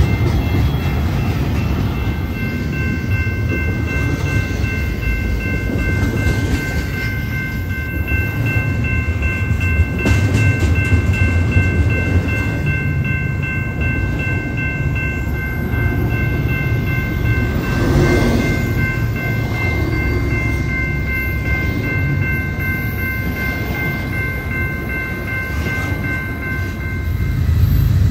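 A BNSF freight train rolling past, with a steady low rumble and wheel clicks over the rail joints early on. A steady high whine of three pitches sits over it for most of the time.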